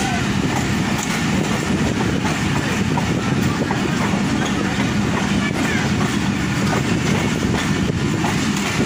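Passenger train running at speed, heard from an open carriage window: a steady rumble of steel wheels on the rails with occasional faint clicks over rail joints.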